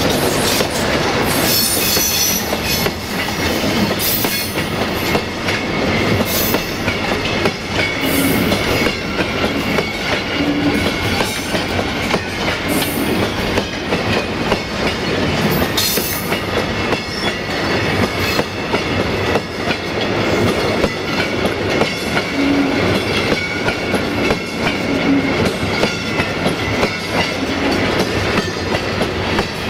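Loaded container flat wagons of a freight train rolling past, their wheels clattering over the rail joints in a steady stream of clicks.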